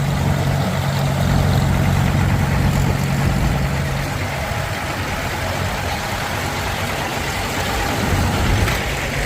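Farmall 560 tractor engine idling steadily. It has a lot of blow-by. Its low hum drops away about four seconds in.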